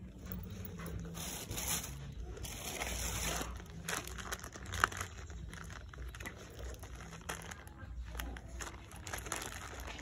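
Crinkling and rustling of plastic wrapping being handled, with one sharp click about five seconds in.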